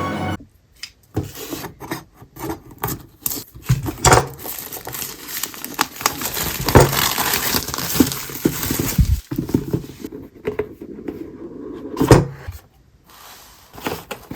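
A keyboard's cardboard box and packaging being opened and handled: irregular scrapes, rustles and knocks, with a longer stretch of sliding and rustling in the middle and a sharp knock near the end.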